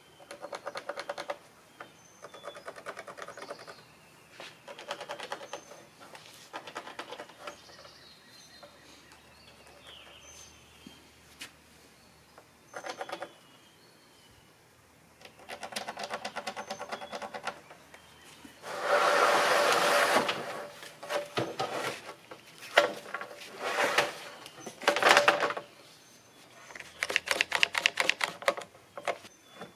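Black plastic lattice sheets and hand tools being handled: bursts of rapid rattling clicks, the loudest about two-thirds in. Near the end a DeWalt trigger bar clamp is ratcheted tight on the stacked sheets.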